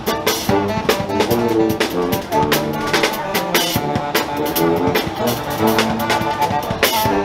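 Street brass band playing an upbeat tune: saxophone, trumpets, trombone and sousaphone over a drum kit keeping a steady beat.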